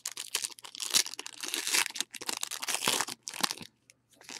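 Foil wrapper of a football trading card pack crinkling and tearing as it is opened by hand, a dense run of rustling that stops about three and a half seconds in.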